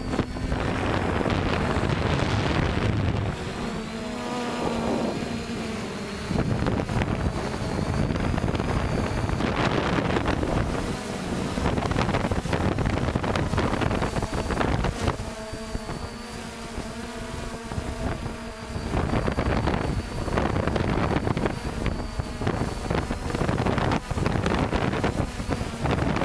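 3DR IRIS+ quadcopter's electric motors and propellers humming, their pitch wavering up and down as the motors work, under heavy wind buffeting on the onboard camera's microphone.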